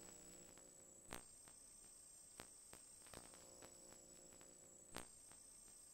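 Near silence: a faint hiss with a steady high whine, broken by a few faint clicks.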